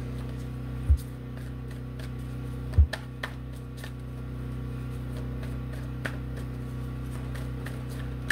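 Steady low hum with two short, dull low thumps, about a second in and near three seconds in, and faint scattered light ticks.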